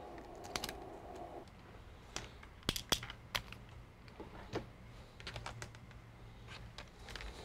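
Scattered light clicks and taps of plastic and small parts being handled inside an opened laptop, with a few quick clusters of clicks. A faint hum stops about a second and a half in.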